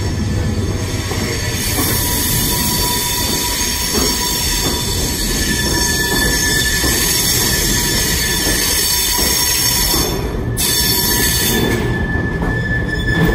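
Freight train passing close by: Direct Rail Services Class 68 diesel locomotives go by, then their container wagons roll past. The wheels squeal with steady high tones throughout.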